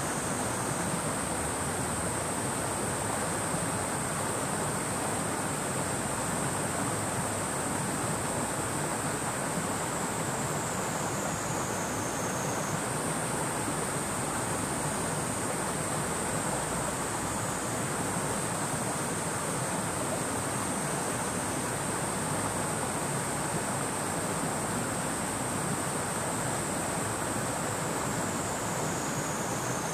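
River water flowing with a steady rush. Over it a cicada sings in long, high, buzzing phrases, each falling in pitch as it ends, with the next starting right after.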